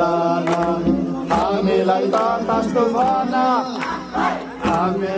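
A crowd of voices singing a devotional aarti bhajan together, with sharp percussive strikes recurring through it.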